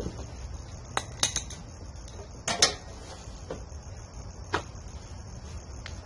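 Steady high chirring of crickets or other insects, with a few sharp light metallic clicks and clinks of engine parts being handled: a quick cluster of them about a second in, a double about halfway, and single ones later.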